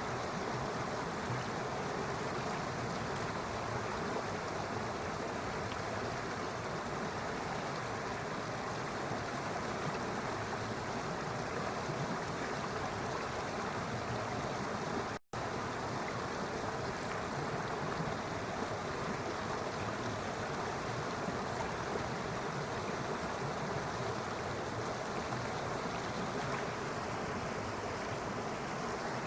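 Steady rush of flowing stream water, with no birds or voices over it. The sound cuts out for an instant about halfway through, then carries on unchanged.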